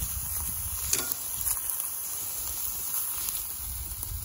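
Chorizo, fajita meat and vegetables sizzling on a grill: a steady high hiss, with a couple of light clicks about a second in.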